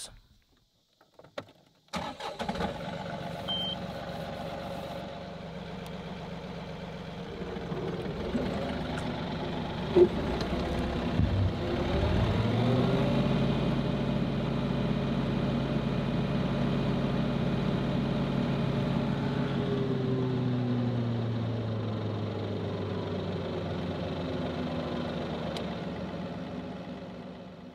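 John Deere 2038R compact tractor's three-cylinder diesel engine idling from about two seconds in. About eleven seconds in it revs up to a steady high speed, then slows back down over the last several seconds.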